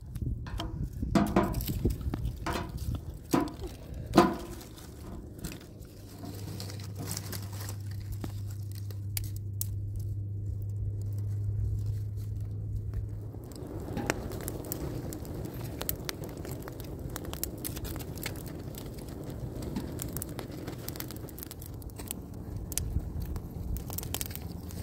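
Dry twigs and leaves handled, knocked and snapped into place, with a low steady hum for several seconds in the middle. Then the brushwood fire catches and crackles.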